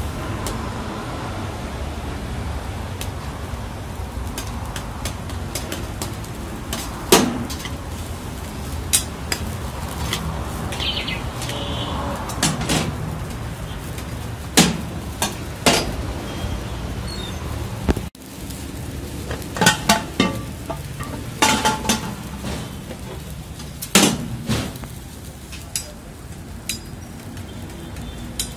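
Steel spatula scraping and knocking against a steel karahi as chicken is stirred in its gravy: scattered sharp metallic clinks, several in quick succession in the second half, over a steady low rumble.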